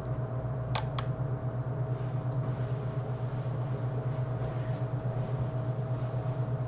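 Steady low hum of fan-like room or equipment noise, with two quick clicks close together about a second in.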